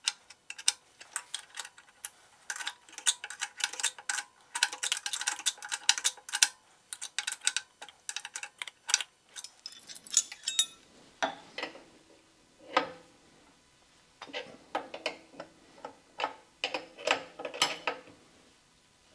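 A wrench clicking on the hydraulic hose fittings of a pump as they are tightened: quick runs of ticks for the first half, then slower, separate clicks and clinks.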